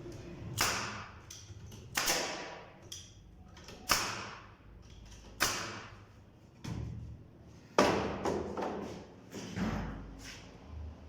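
Sharp knocks on wood: five loud strikes about a second and a half apart, each ringing briefly, with lighter taps between them in the second half.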